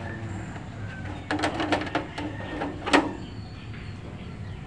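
A quick run of sharp metallic clicks and knocks from hands working on a transformer-type arc welding machine, starting about a second in; the loudest knock comes near three seconds. A low steady hum sits underneath.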